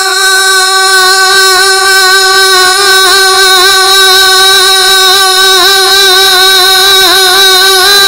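A long sung note in a naat recitation, held at one steady pitch with a slight waver and no words, amplified over a PA system.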